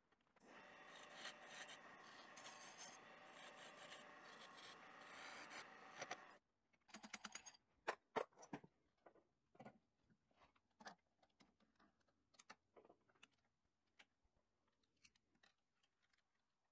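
Faint rubbing against a wooden blank turning on a lathe for about six seconds, then it stops and scattered light clicks and taps follow.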